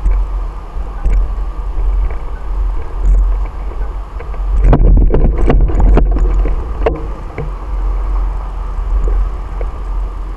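Wind buffeting and a steady low rumble on a bicycle-mounted camera as the bike rolls along pavement. About five seconds in, a burst of knocks and rattling lasts around two seconds, the loudest part, as the bike and camera jolt over rough road.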